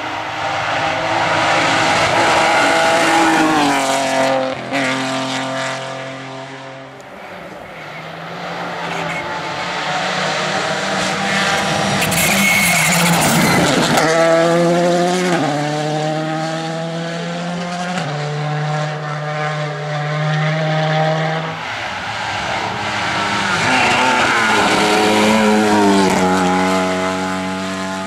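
Rally cars at full throttle passing on a special stage, engines revving hard through the gears. Each run of rising pitch breaks off and drops as the next gear goes in, several times over, as one car after another goes by.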